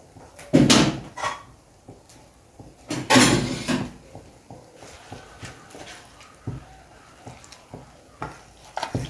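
Seasoned chicken pieces being tipped into a pan of simmering coconut curry sauce: two loud, short splashing and scraping noises, about half a second and about three seconds in, followed by a run of small knocks and clicks of the bowl and spoon against the pan.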